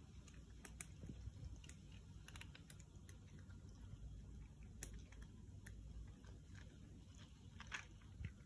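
Several cats eating wet food from a shared dish: faint, irregular smacking and chewing clicks over a low steady rumble.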